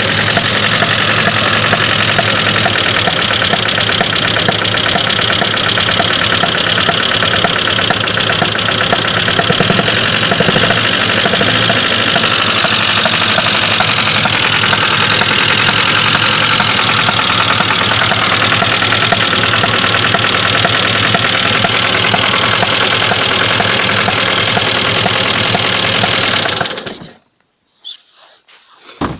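Engine running with a steady, rapid knocking: the engine knock the owner is recording. The running stops abruptly near the end.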